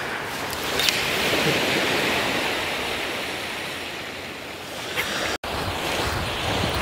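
Surf breaking and washing up a sandy beach, swelling about a second in and easing off, with a sharp click about a second in. A brief dropout about five and a half seconds in, after which wind rumbles on the microphone.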